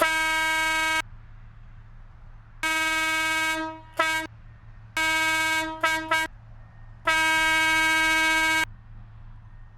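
Truck air horn run by a small 12-volt compressor, blasting one steady note in a rhythm of long and short honks: a long blast, then a long and a short one, a cluster of shorter toots, and a final long blast.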